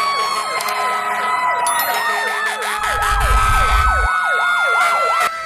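Fire engine sirens: a fast yelp siren sweeping about three times a second over a steady siren tone that slowly falls in pitch, with a low rumble around the middle. The sound cuts off suddenly near the end.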